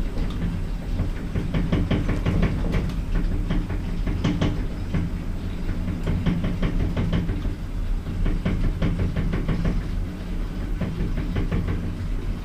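A passenger lift travelling in its shaft: a steady low rumble and hum with irregular knocks and rattles throughout.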